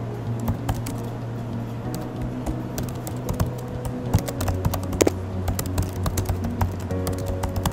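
Computer keyboard typing: quick, irregular key clicks as a terminal command is typed, over background music with steady held notes.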